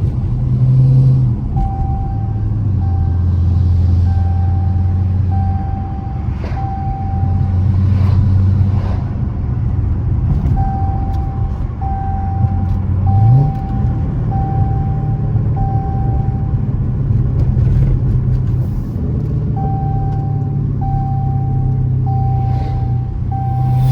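A 392 Hemi V8 (6.4 L) with gutted catalytic converters, running with a deep rumble. Its note drops about a second and a half in and rises again about halfway through. A high beep repeats about twice a second in three runs over the engine.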